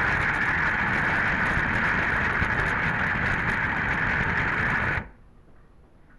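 Electric toy train's motor and gears whirring loudly and steadily as it runs, heard from a camera riding on the train, cutting off abruptly about five seconds in; a few faint ticks follow.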